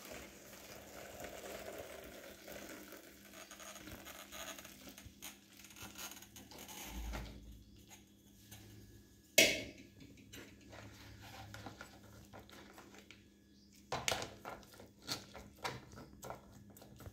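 Boiled pineapple peel liquid pouring from an aluminium pot through a plastic strainer into a plastic container. About nine seconds in comes a single sharp clank, the loudest sound, and near the end a metal spoon scrapes and knocks in the strainer as the peels are pressed.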